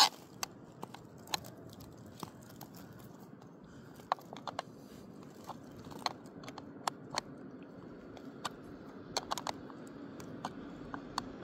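Irregular sharp metal clicks, a couple of dozen of them, from a hex key being turned in short strokes to tighten a threaded gauge rod against the rail.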